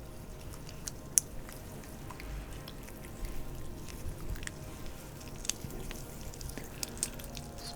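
Massage oil worked by hands over skin, making scattered short wet clicks and soft squishes.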